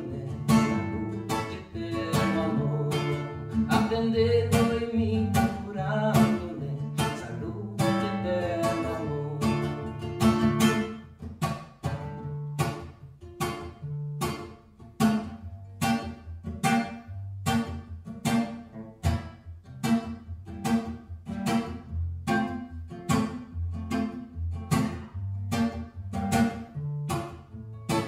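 Acoustic guitar strummed in a steady rhythm, with a man singing over it for about the first ten seconds, then the guitar going on alone.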